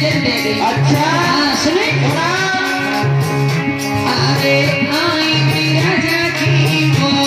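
Live Hindi devotional bhajan music: a woman singing into a microphone over a band with a steady repeating beat, with sung phrases about a second in and again near five seconds.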